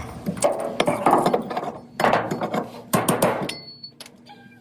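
Hand tools and metal washer parts clanking and knocking in three quick clusters of sharp hits, the last leaving a brief metallic ring.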